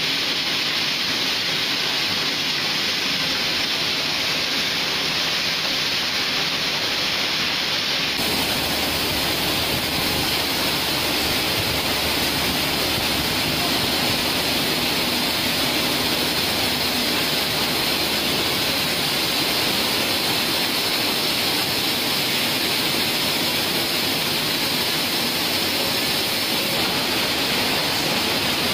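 PET-bottle juice filling line running: a steady rushing hiss from the rotary filler and conveyors, with no distinct clanks or beat. It grows a little fuller and brighter about eight seconds in.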